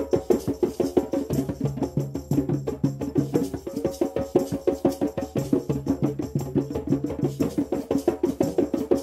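Background music with a fast, busy percussion rhythm, several strikes a second, over a low repeating bass line.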